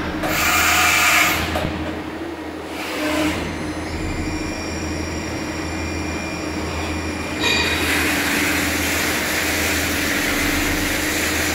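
Quaser MV214P/12B vertical machining center running: a steady machine hum with a thin high whine that comes in about four seconds in. Bursts of hiss near the start and around three seconds, then a steady louder hiss from about seven and a half seconds on.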